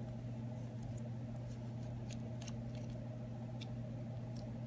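Precision screwdriver backing small screws out of an iPhone 6's internals: faint, irregular light clicks and ticks over a steady low hum.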